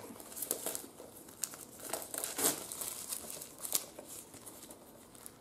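Plastic shrink-wrap crinkling and tearing as it is peeled off a Blu-ray steelbook case, in irregular crackles that die down near the end.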